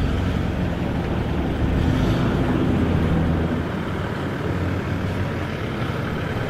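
Nissan Patrol's RD28 turbo-diesel straight-six idling steadily, growing a little fainter toward the end.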